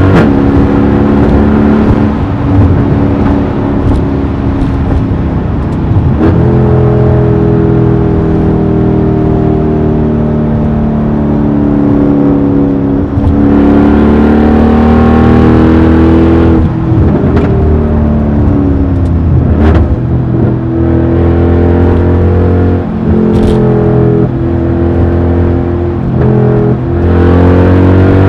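Mercedes-AMG E63's V8 through a loud exhaust, pulling hard and climbing in pitch, then dropping back sharply several times as the gearbox shifts up. A few sharp cracks come through around the shifts.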